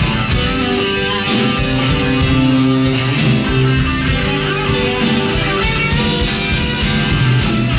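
Live rock and roll band playing an instrumental passage. An electric guitar, played on a double-neck, leads with sustained notes over bass and drums.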